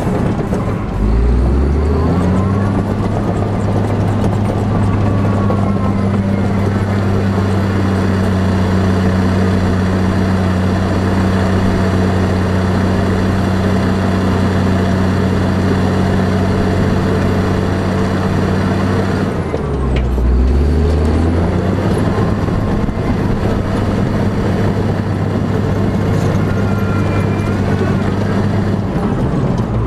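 A heavy vehicle's engine winds up in the first two seconds and then runs steadily with a low hum. It dips and winds up again about twenty seconds in, and once more near the end.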